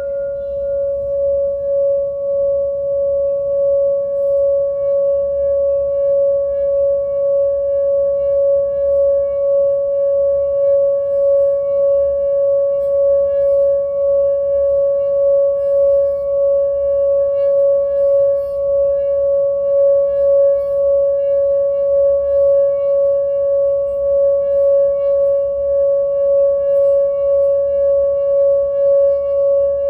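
Singing bowl sounding one sustained, steady tone with fainter higher overtones, swelling over the first few seconds and then held with an even, slow wavering in loudness.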